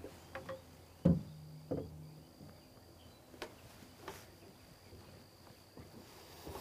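An acoustic guitar being set down: a sharp knock about a second in, with a low string note ringing on for about a second after it, then a softer knock. A faint, steady, high insect chirring runs underneath.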